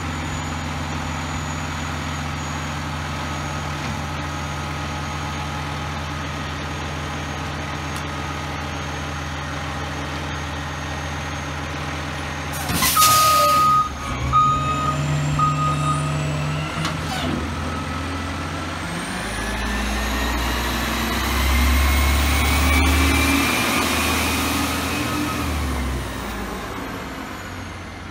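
Autocar Xpeditor front-loader garbage truck's engine idling steadily, then a loud air-brake release hiss about 13 seconds in, followed by a few reversing beeps. From about 19 seconds the engine revs up and rises in pitch as the truck pulls away, fading near the end.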